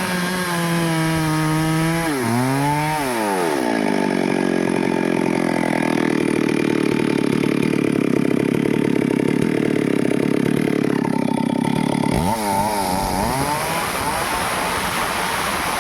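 Stihl two-stroke chainsaw revving up sharply about two seconds in and then cutting into a teak trunk at full throttle, running steadily under load. About twelve seconds in the pitch drops suddenly and wavers up and down as the throttle is eased and blipped.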